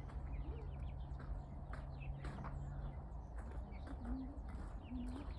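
Farmyard birds giving two short, soft, low wavering calls near the end, over a steady low rumble, with a low hum in the first few seconds.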